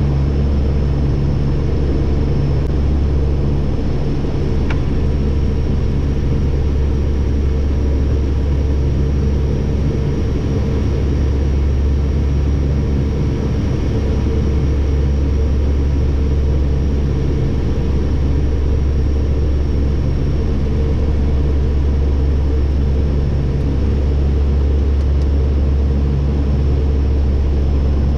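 De Havilland Canada Dash 8-100's twin turboprop engines and propellers heard from the flight deck on approach: a steady low drone with several constant tones above it, holding even throughout.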